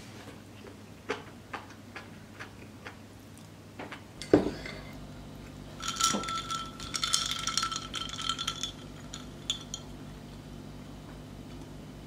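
Light clicks of wooden chopsticks against a ceramic rice bowl, then the bowl is set down on the table with a single sharp knock. A few seconds of dense clinking follow as a glass is handled.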